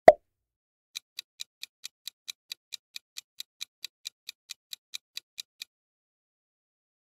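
A short pop, then the quiz countdown timer's ticking sound effect: rapid, even clock-like ticks, about five a second, starting about a second in and stopping after about four and a half seconds.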